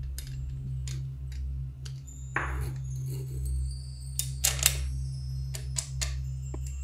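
Small metal clicks and taps as the black handle bracket of a restored hand pump is fitted onto its red steel barrel and a bolt is pushed through, the sharpest cluster about four to five seconds in, over a steady low hum.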